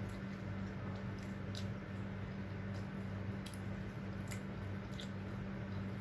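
Close-miked eating: chewing with soft wet mouth sounds and a few sharp clicks scattered through. A steady low hum runs underneath.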